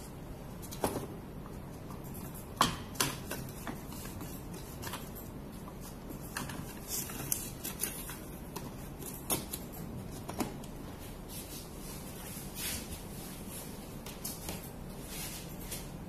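Irregular clicks and taps, about a dozen, as of equipment being handled and buttons pressed, over a steady low hum; the sharpest come about a second in and just under three seconds in.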